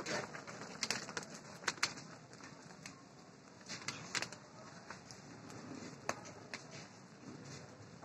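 Faint crackling of a wood fire under a large pan of boiling rasgulla syrup, with scattered sharp pops and clicks over a low, steady bubbling.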